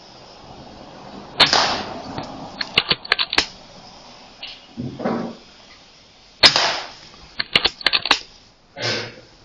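A .177 sub-12 ft-lb PCP air rifle (Air Arms S510 Ultimate Sporter) fires twice, about a second and a half in and again about six and a half seconds in. Each shot is a sharp crack with a short tail. After each one comes a quick run of mechanical clicks as the side lever is worked to load the next pellet, and duller knocks sound between and near the end.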